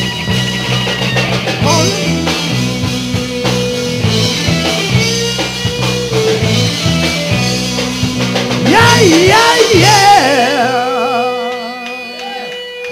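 Live rock band of electric guitars and drums playing loudly. About nine seconds in, a lead guitar wails with wide, wavering bends over a held chord, which then rings out and fades near the end, like a song's final flourish.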